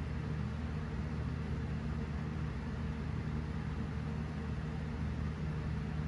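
Steady low mechanical hum with an even hiss, unchanging throughout.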